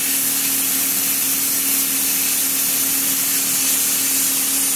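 Hypertherm Powermax 30 XP plasma cutter cutting through steel plate: a steady, loud hiss of the arc and air jet, with a constant low hum underneath.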